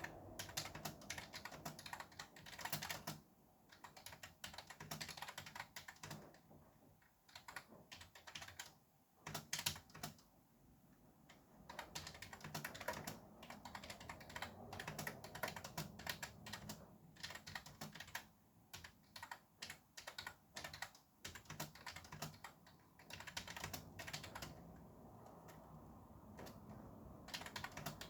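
Fast typing on a computer keyboard: quick runs of keystrokes broken by short pauses, over a faint steady hiss of traffic noise.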